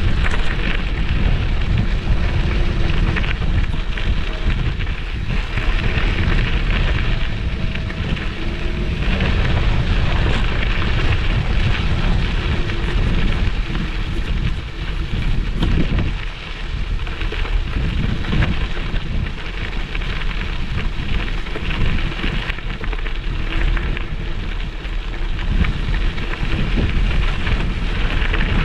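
Wind buffeting the bare microphone of a GoPro clamped to a moving electric scooter: a loud, steady rushing noise with a heavy low rumble.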